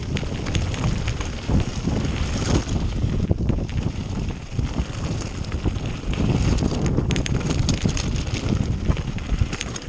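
Mountain bike riding fast down a loose gravel trail: wind buffeting the camera microphone over the crunch of tyres on stones, with sharp clicks and rattles from the bike over the rough ground.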